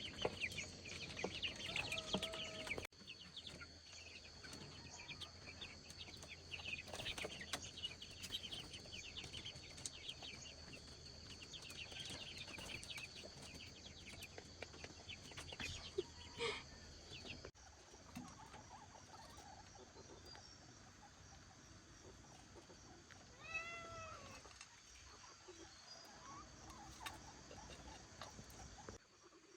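Chickens and chicks cheeping in short high chirps over a steady high-pitched drone, then a kitten meowing once, a single arched cry, about three-quarters of the way through, with another meow beginning at the very end.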